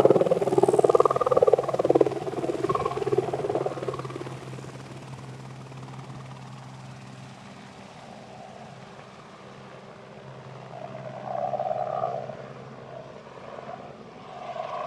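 Helicopter flying away after take-off, its rotor and engine sound with a steady low hum loud at first and fading over the first several seconds as it climbs into the distance.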